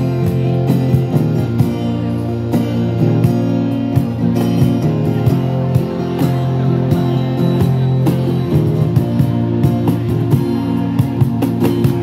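Live amplified pop music from a street busking act: a strummed acoustic guitar with a steady sustained backing, playing an instrumental passage with little singing.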